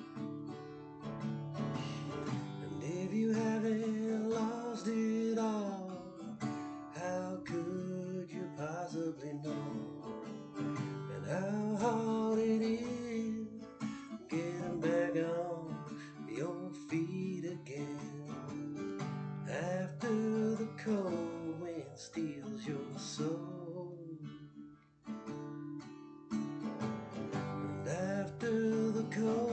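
Acoustic guitar strummed in a slow song accompaniment, with a voice singing over it at times.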